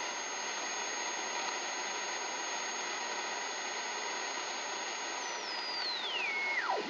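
R-390A tube communications receiver's speaker hissing, with a high heterodyne whistle from the BFO beating against the 100 kHz crystal calibrator signal. The whistle holds steady, then glides smoothly down to a low tone near the end as the dial is tuned toward zero beat.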